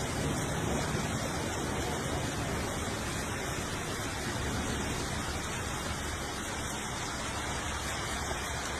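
Steady rushing hiss of storm water, heavy rain and runoff, with no pitch and no separate impacts.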